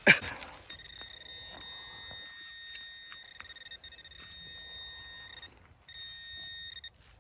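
Metal detector's steady high target tone sounding over metal in a freshly dug hole, breaking off twice briefly near the end. A few faint knocks and scrapes of digging in soil come through underneath.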